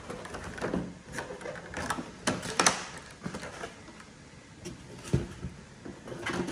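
Plastic and foam packaging being handled and cleared off a glass tabletop: irregular rustles, scrapes and knocks. They are busiest a couple of seconds in, with a single knock near the end.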